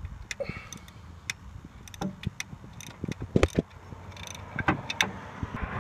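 Hand ratchet clicking and metal tools clinking as a 12 mm bolt on the serpentine belt tensioner bracket is undone: scattered sharp clicks, with small clusters about three and a half and five seconds in.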